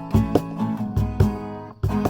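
Acoustic guitar strummed in a steady rhythm, each chord stroke ringing on until the next.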